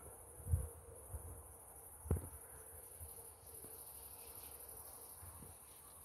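Crickets chirping in a steady, high-pitched trill, with a couple of soft low thumps about half a second and two seconds in.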